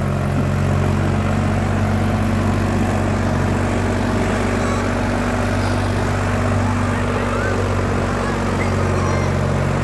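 Sonalika DI 35 tractor's diesel engine running steadily under load as it pulls a disc harrow through the soil.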